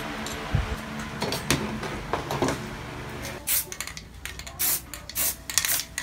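Small steel latch parts clicking and knocking as they are handled with long-nose pliers, then about four short hissing bursts from an aerosol spray-paint can in the second half.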